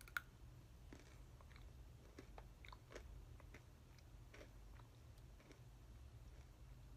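A person biting into and chewing crunchy imo kenpi (candied sweet-potato sticks). There is one sharp bite just after the start, then faint, scattered crunching.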